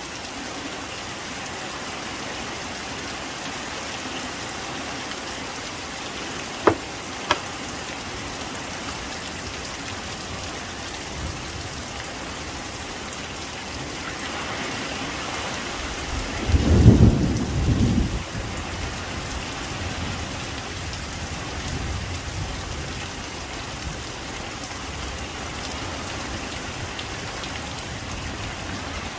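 Heavy rain falling steadily, with a low rumble of thunder about two-thirds of the way through, the loudest sound here. Two short sharp clicks a little over half a second apart come about a quarter of the way in.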